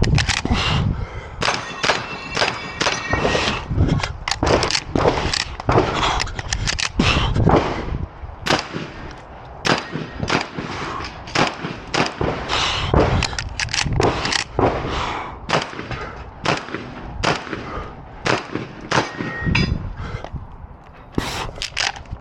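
Shotgun shots fired one after another in quick strings with short pauses between them, a few dozen sharp reports, each with a short echo.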